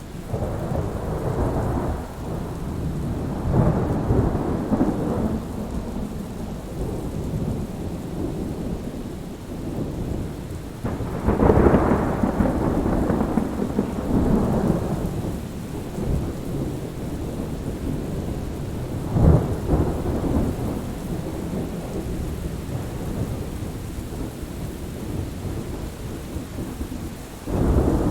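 Thunder rumbling over steady rain: several rolls come and go, the loudest a little before halfway, with a sharper crack about two-thirds of the way through.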